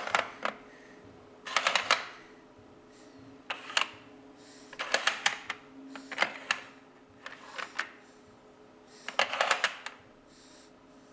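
Plastic car and truck pieces of a sliding-block traffic puzzle being pushed and knocked about in their plastic grid tray, in short runs of rattling clicks about seven times.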